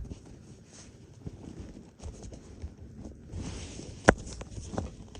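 Rustling and handling noise as a car airbed mattress and its pump are taken out of their carrying bag, with scattered small clicks and one sharp knock about four seconds in.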